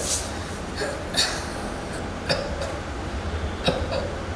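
A man coughing in several short bursts, the cough of someone ill.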